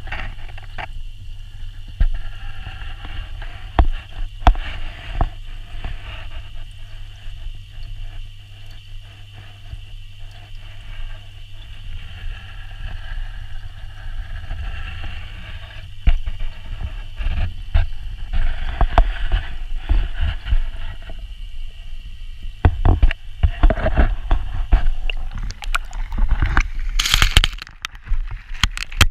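Muffled underwater noise picked up through a GoPro Hero 4's waterproof housing submerged in a garden pond: a steady low rumble with scattered knocks and clicks. The knocking grows busier in the last several seconds, with a brief louder rush of noise near the end.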